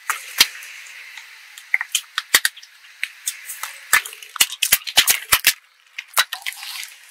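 Car tyre rolling over small plastic jars of slime and crushing them: a quick run of sharp plastic cracks and snaps, thickest just past the middle, as the lids and jars split and the gel squeezes out.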